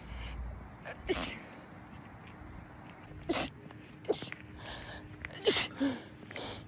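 A woman's rapid sneezing fit: about six sharp sneezes in quick, uneven succession, set off by sunlight (a sun-triggered sneeze reflex).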